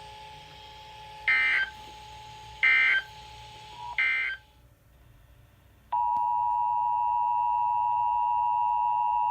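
Emergency Alert System signalling from a NOAA Weather Radio broadcast: three short, evenly spaced bursts of warbling data tones, the end-of-message code. After a brief near-quiet pause, about six seconds in, the steady two-tone EAS attention signal starts and holds.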